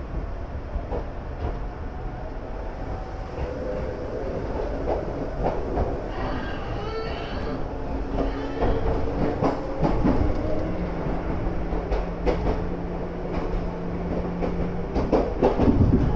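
Former Tokyu electric commuter car pulling away from a station and gathering speed, heard from on board. The rumble grows steadily louder, with a steady motor hum whose tones shift as it speeds up and wheels clacking over rail joints.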